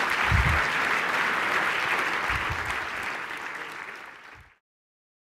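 Audience applauding at the end of a talk, fading gradually and cutting off abruptly about four and a half seconds in, with two brief low thumps in the first half.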